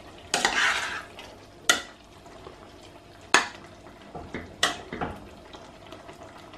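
A utensil stirring chicken and vegetable stew in a steel pot: a wet scrape through the stew, then three sharp clinks against the pot's side, a second or so apart, with a few lighter knocks.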